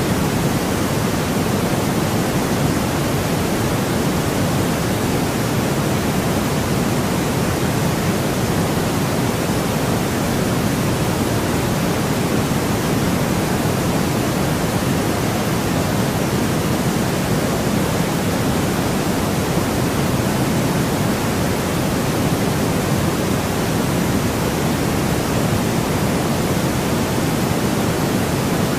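Steady electronically generated white noise for sleep, an even, unchanging hiss with its weight in the lower range.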